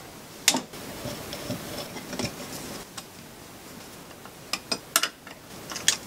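Metal turbocharger parts clinking and knocking as they are handled, with loosened housing bolts being set down: a sharp click about half a second in, another near three seconds, and a quick run of clinks from about four and a half seconds on.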